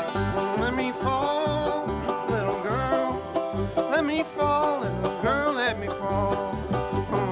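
Bluegrass band playing an instrumental break: resonator banjo picking over a steady upright bass and guitar rhythm, with a sliding melody line on top.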